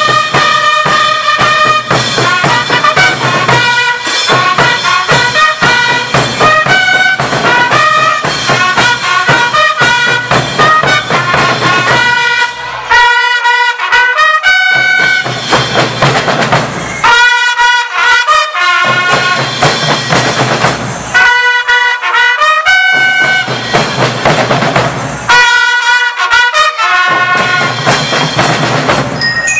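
School marching band playing: a bright trumpet and bell-lyre melody over snare drums, bass drums and cymbals. From about halfway the drums drop out four times for a couple of seconds each, leaving the melody alone before the full band comes back in.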